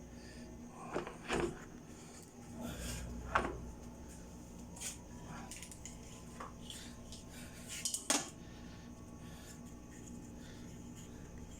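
Light clinks and knocks of small hard objects being handled, with a few sharper clicks: about a second in, near three and a half seconds, and around eight seconds.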